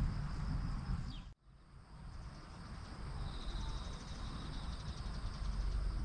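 Outdoor ambience of insects trilling steadily in several high, even pitches over a low rumble. The sound drops out briefly about a second in, then fades back in.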